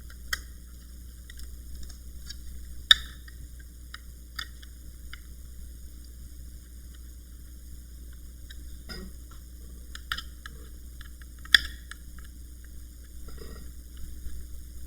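Small screwdriver tightening the screws of a laptop hard-drive bracket: scattered light clicks and scrapes of metal, with three sharper clicks, over a faint steady low hum.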